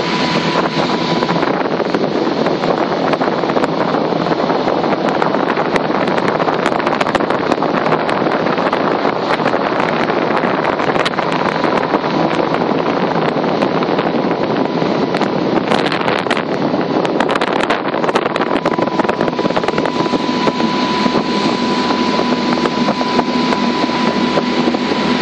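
Viknes 770 motorboat under way at speed: steady engine noise mixed with rushing water from the hull and wake, and wind buffeting the microphone.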